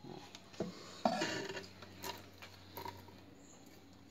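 A few light knocks and short scrapes: a metal snake hook knocking and sliding against a wooden box as a snake is lifted out of it.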